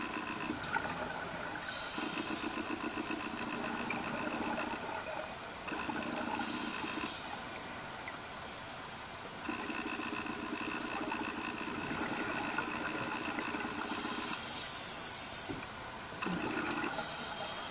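Scuba diver breathing through a regulator, several breaths. Short high hisses alternate with longer stretches of low, rapid bubbling from the exhaled bubbles.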